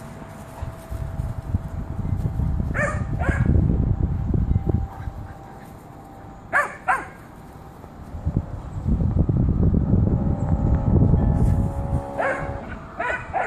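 Dogs barking during play: short sharp barks in quick pairs, about three seconds in, about six and a half seconds in, and again near the end, over stretches of low rumbling noise.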